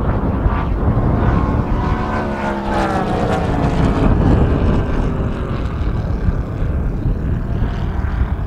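Home-made V4 220 cc four-stroke engine of a large radio-controlled model plane, running in flight and turning a three-blade propeller, its drone heard through heavy wind noise on the microphone. The engine's pitch sinks slowly from about two to five seconds in.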